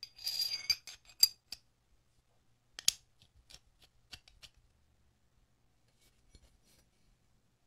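Metal hand tool handled and worked, most likely the restored adjustable wrench: a short metallic scrape with a ringing note, then a few sharp metal clicks and lighter taps, fading to faint clicks near the end.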